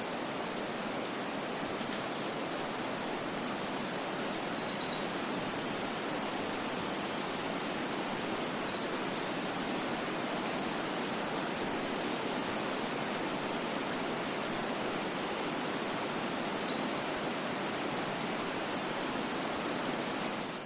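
Birds chirping outdoors: one very high, short chirp repeats evenly, about three every two seconds, over a steady hiss of outdoor ambience, with a few fainter, lower bird notes now and then.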